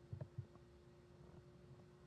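Near silence: faint room tone with a steady low hum and two soft, short thumps a fraction of a second apart near the start.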